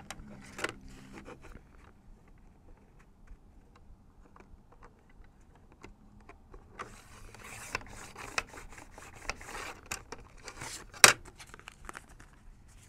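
Paper and thin cardboard handled and slid into place on a sliding paper trimmer, then the trimmer's cutting head drawn along its rail through the cardboard with a scratchy swish for a few seconds, from about seven seconds in. A single sharp click near the end.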